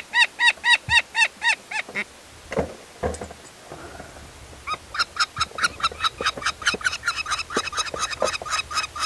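Peregrine falcon calling: a fast run of repeated shrill cries, about five a second. The cries stop for under three seconds, with a few soft handling knocks, then start again harsher and faster.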